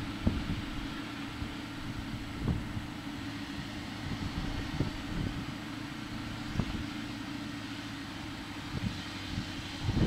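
Kirovets K-701M tractor's YaMZ V8 diesel running steadily under load while pulling a cultivator through stubble. A few brief low thumps break in now and then.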